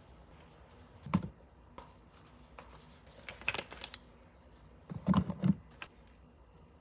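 Small clicks and knocks of makeup items and their cases being handled: a sharp knock about a second in, a quick run of light clicks around the middle, and a louder cluster of knocks a little past five seconds.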